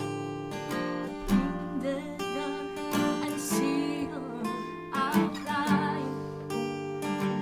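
Small band rehearsing: acoustic guitar strumming chords with a wavering melody line above it, all recorded live to a single microphone.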